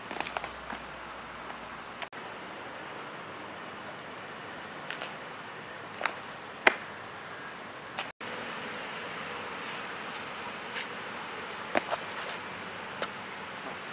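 A steady high insect trill from night insects, with a handful of sharp scuffs and taps of sneakers on pavement as two people step and shift their feet.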